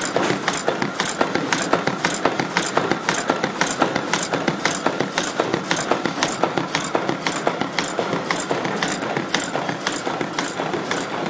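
Galaxo PRO780LB crash-lock folder-gluer running, its belts and rollers giving a steady whir under a regular clacking at about four a second.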